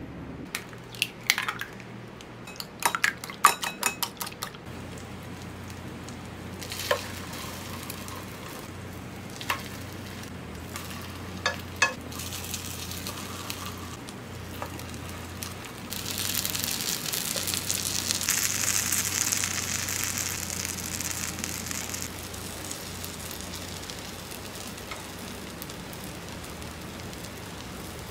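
Zucchini slices shaken with flour in a plastic bag, a quick run of rustles and clicks, then a few clicks of chopsticks on the bowl and pan. Egg-dipped zucchini rounds then sizzle in hot oil in a frying pan, loudest about halfway through and easing off near the end.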